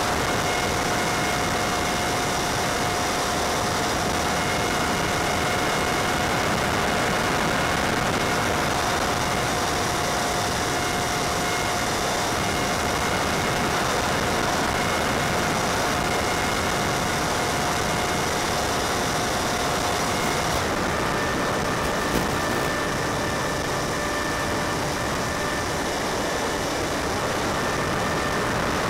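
Steady hiss and motor whine from the Multiplex Easy Star's electric motor and propeller, heard on the plane's onboard audio sent over the video link. About 20 seconds in the whine changes pitch as the motor current drops from about 18 to about 10 amps.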